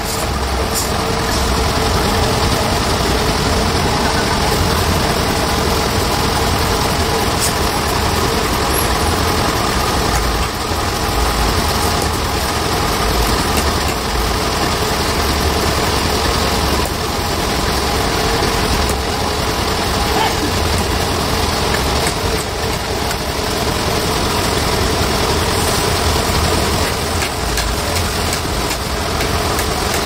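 An engine runs steadily with a low hum and a constant noisy wash of machinery.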